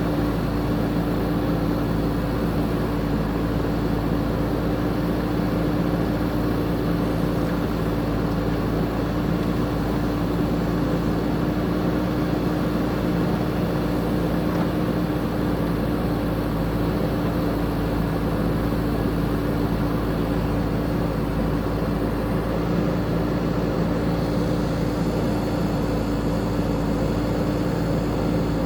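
JCB 3DX backhoe loader's diesel engine running steadily at a constant speed, with a steady hum and no revving up or down.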